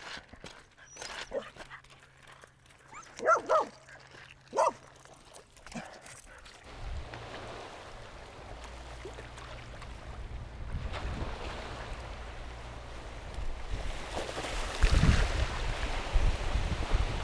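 A dog gives a few short whimpers and yips. Then, about six seconds in, a steady low rumble sets in and grows louder toward the end.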